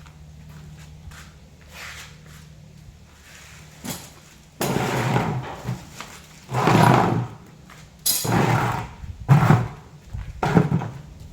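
Sliding door panel being moved along its track in five short scraping, knocking runs, as the newly fitted anti-fall stopper is tried.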